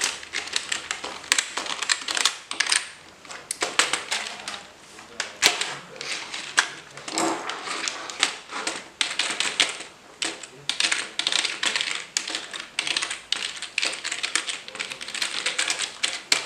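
Rapid typing on a rubber-dome membrane computer keyboard: a continuous clatter of key presses, clacky enough to sound like a mechanical keyboard.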